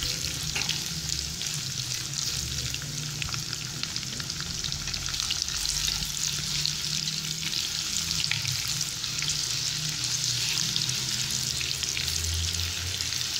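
Sliced onions and cumin seeds sizzling in hot oil in a non-stick kadai over a medium flame, stirred with a silicone spatula; a steady frying hiss full of small crackles.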